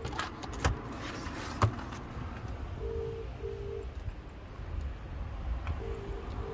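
Car boot being opened and its hinged parcel shelf lifted: a few clicks and knocks in the first two seconds. Then two pairs of short low beeps, about three and six seconds in.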